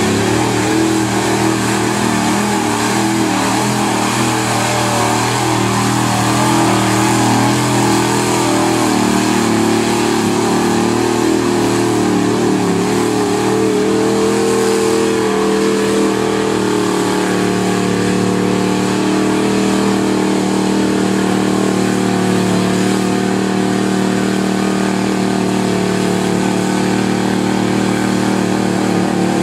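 Lifted Dodge pickup on 44-inch mud tires pulling hard through a mud pit, its engine held at high revs. The engine's pitch climbs about a third of the way in, then holds steady.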